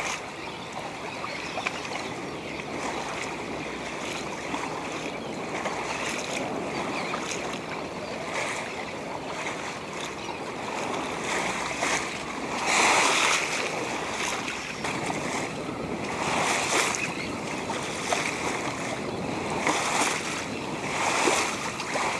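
Water washing along a sailboat's hull with wind on the microphone, a steady rush that surges every few seconds.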